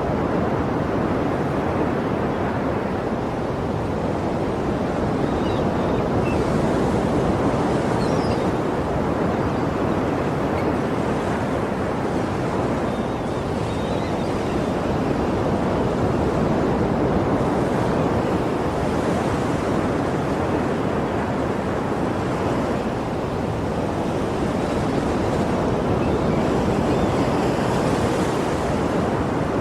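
Sea surf: waves breaking and washing in a continuous rush that swells and eases slowly every several seconds, with a brighter hiss at each wash.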